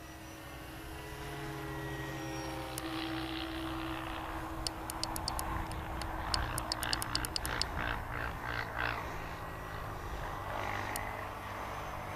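Propeller and electric motor of a La-5FN model plane flying overhead, a steady drone that drifts slowly in pitch as it circles. About halfway through comes a quick run of sharp clicks, the transmitter's trim switches as the elevator is trimmed up.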